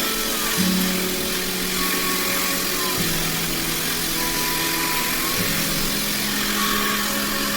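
Hair dryer running: a steady rush of blown air over a motor hum.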